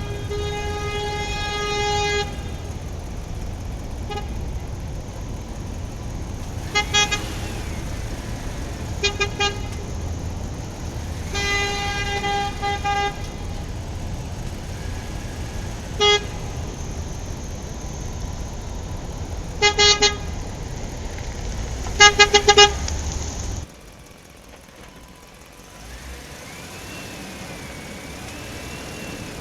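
A vehicle horn honking over and over, some toots long and held, others short and in quick groups of three, over a steady low engine rumble that stops about three-quarters of the way through.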